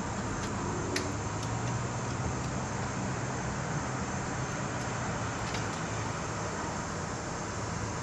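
Steady background hum and hiss of outdoor ambience, with a faint click about a second in.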